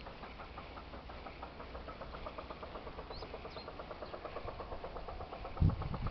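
A rapid, even run of short pulses, about eight a second, with a few quick high bird chirps over it and a low thump near the end.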